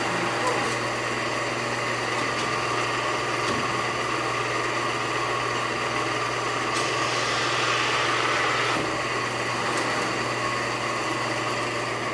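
Pacific Tri-Arco 35-6 hydra-mechanical press brake running at rest, a steady machine hum with even noise above it; it briefly grows a little brighter about seven seconds in.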